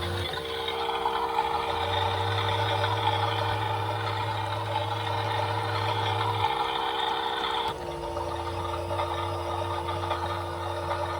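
Several battery-powered toy washing machines running together, their small electric motors humming as the drums turn. One motor's hum steps up in pitch just after the start and drops back near the end, and a lower hum cuts out and restarts twice.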